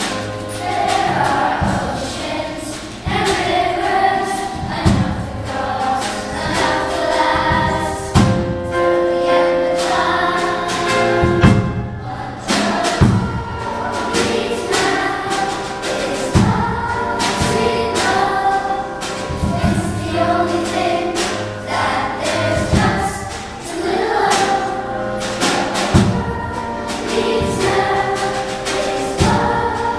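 School boys' choir singing a pop medley, backed by a stage band of saxophones, electric guitar, keyboard and a drum kit keeping a steady beat.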